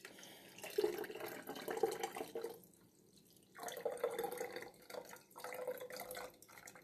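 Herbal tea being poured through a plastic funnel and strainer into a glass bottle, trickling and splashing as the bottle fills. The pour stops for about a second in the middle, then resumes.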